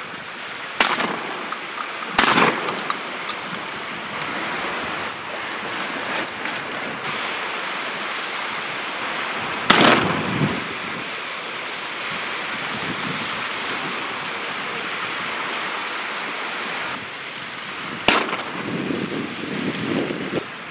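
Four shotgun shots, spread over the stretch, with wind buffeting the microphone and waves lapping in between.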